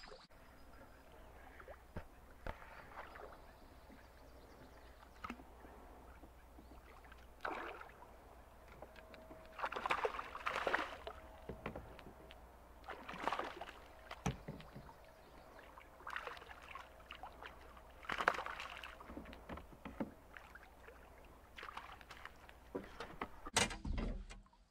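Water splashing and sloshing beside a fishing boat in a series of irregular bursts as a hooked fish thrashes at the surface and is scooped into a landing net, with a sharp knock near the end.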